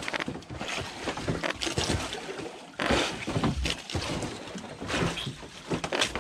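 Sea water sloshing and slapping against a small wooden boat's hull, in irregular surges with wind on the microphone, and a few knocks as the catch is handled over the side.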